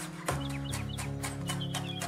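A chef's knife chopping rapidly on a wooden cutting board, about four chops a second, mincing garlic cloves, over background music.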